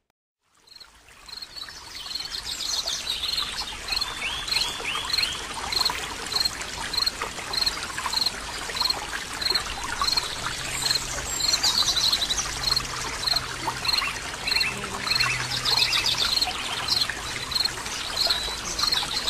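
Water trickling and pouring into a koi pond, with a high, short chirp repeating about twice a second throughout and brief bird calls now and then.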